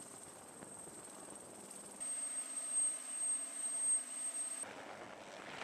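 Military helicopter turbine engines running with rotors turning: a steady high turbine whine, loudest from about two seconds in, up close beside an AH-1Z Viper. Near the end it gives way to a rougher rushing noise.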